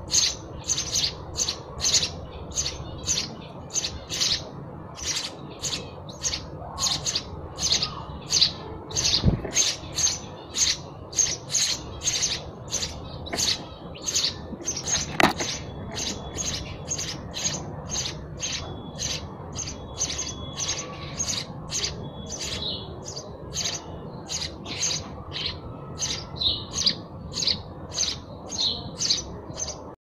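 House sparrow chirping over and over, about two short chirps a second, at an even pace.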